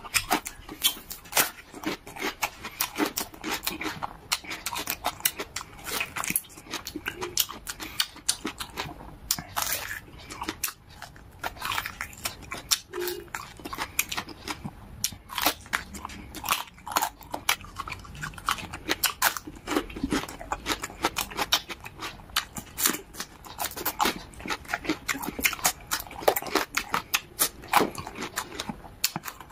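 Close-up chewing of cooked beef on the bone: wet smacking and many small irregular mouth clicks, with occasional gnawing at the meat.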